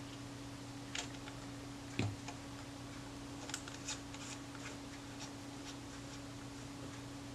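Faint small metallic clicks and ticks as a cap is fitted back onto the side of a Rolleiflex Automat TLR camera body with fingers and tweezers, with a soft knock about two seconds in. A steady low hum runs underneath.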